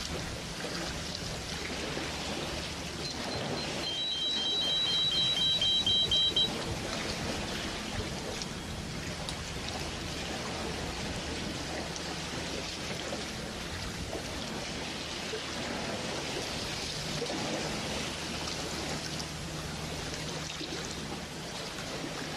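Steady water noise like rain or running water, with a faint low hum under it. A rapid electronic beeping comes in about three seconds in and stops a few seconds later.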